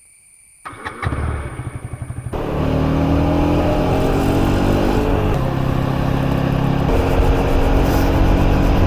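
KTM Duke 250's single-cylinder engine being started: the electric starter cranks in quick pulses for about a second and a half, then the engine catches and runs steadily, its pitch rising a little just after it fires.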